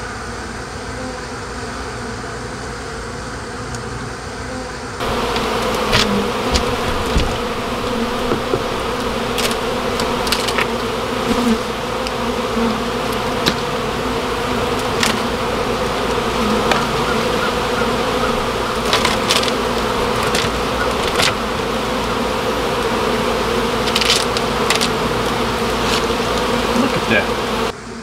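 A large colony of honey bees buzzing in an opened wall void, a dense steady hum that grows louder about five seconds in. A few sharp clicks are scattered through it.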